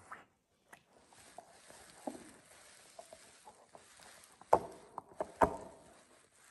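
Alaskan Malamute gnawing a chew bone: scattered clicks and scrapes of teeth on the bone, with two loud crunches about a second apart near the end.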